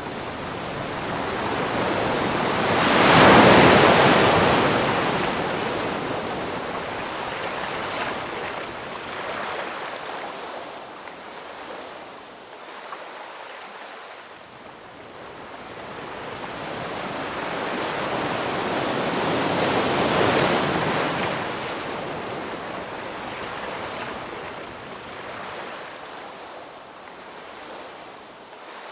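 Ocean waves breaking on a shore: two waves swell and crash, one about three seconds in and another about twenty seconds in, each washing out slowly between them.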